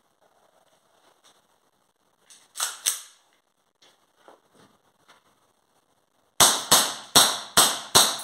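WE Hi-Capa Dragon 7-inch gas blowback airsoft pistol, running on red gas, fired six times in quick succession near the end, about three sharp cracks a second as the slide cycles. Two sharper clacks come about three seconds in, before the shooting.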